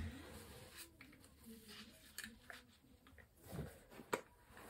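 Very quiet, with a few faint clicks and rustles as an airsoft face mask and a fabric boonie hat are handled and pulled on over the head.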